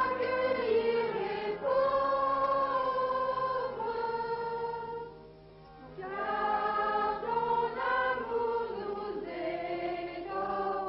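Choir singing a hymn in long held notes, with a brief break about five seconds in.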